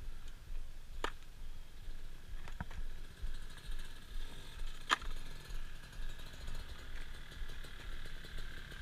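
Dirt bike engine running steadily at a distance, a faint even whine, with wind rumbling on the microphone and a few light clicks.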